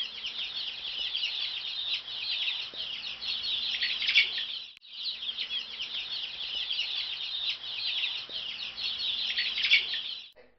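A brood of newly hatched chicks peeping: a dense chorus of many short, high cheeps overlapping one another. It breaks off for a moment near the middle and resumes.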